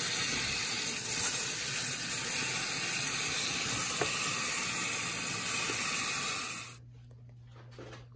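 Kitchen faucet spray running over cut vegetables in a bowl in the sink: a steady hiss of water that cuts off suddenly near the end.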